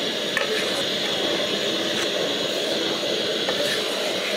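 A utensil stirring a coconut-milk gravy in a metal cooking pan, with scattered clicks and scrapes against the pan over a steady hiss.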